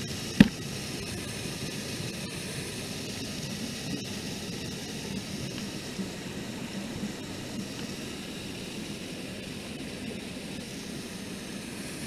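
Steady rushing of a small waterfall pouring over a rock slab close to the microphone, with one sharp knock about half a second in.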